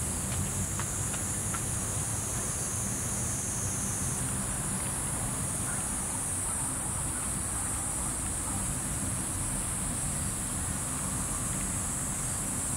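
Steady, high-pitched drone of an insect chorus, with a low, even rumble underneath.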